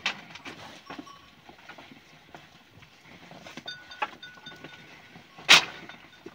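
Sheep flock milling about, with scattered clicks and knocks and one loud sharp knock about five and a half seconds in.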